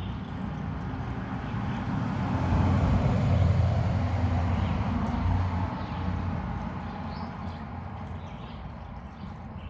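A road vehicle passing by: a low rumble that swells to its loudest about three to five seconds in, then fades away.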